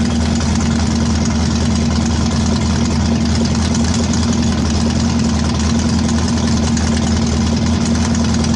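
Chevrolet Vega engine idling steadily but running badly, with an uneven pulse. The owner puts the rough running down to two dead spark plugs, meaning two cylinders are misfiring.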